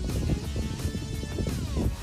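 Background music track with a steady beat and sustained tones.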